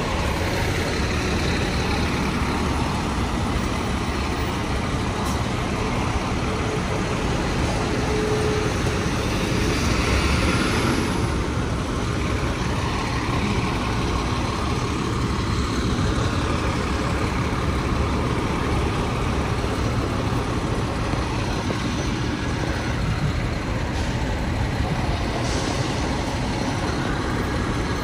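Busy city street traffic, with buses and trucks running past close by: a steady engine rumble and road noise that swells louder about ten seconds in.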